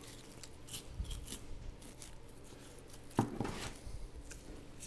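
Boning knife cutting and scraping along the bones of a beef strip loin as the bones are taken out: faint scattered clicks and scrapes, the loudest about three seconds in.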